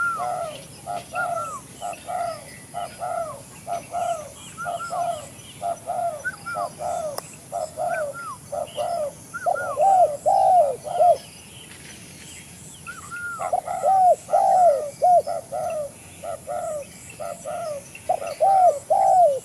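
Spotted doves (tekukur) cooing: a long run of short, falling coo notes, about two a second, breaking off for a couple of seconds about eleven seconds in and then resuming louder. Faint high chirping runs underneath.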